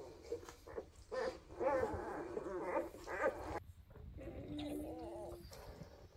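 Newborn Weimaraner puppies squeaking and whimpering while nursing: a run of short wavering cries, then one longer, steadier whine about two-thirds of the way through.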